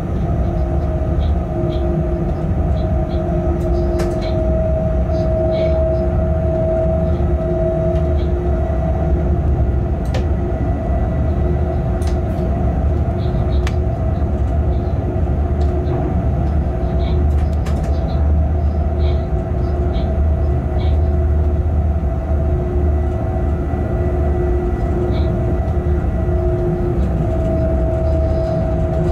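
Locomotive running light, heard from inside its cab: a steady low rumble with two steady hum tones over it and scattered short clicks.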